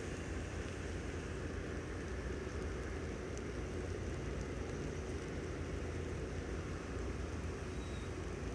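Steady low engine rumble with a faint steady hum, unchanging throughout.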